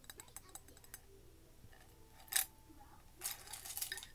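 Light tapping and handling of a ceramic mug packed with paintbrushes: a few soft ticks, one sharp clink that rings briefly about two seconds in, then the wooden brush handles rattling against each other and the mug rim near the end.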